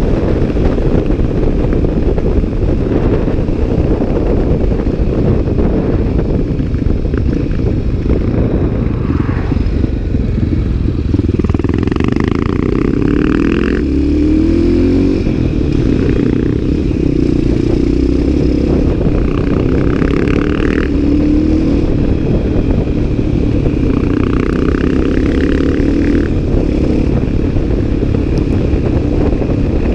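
CCM 604 supermoto's single-cylinder Rotax engine running under way, mixed with heavy wind rush on the microphone. From about the middle, the engine note rises and falls with the throttle.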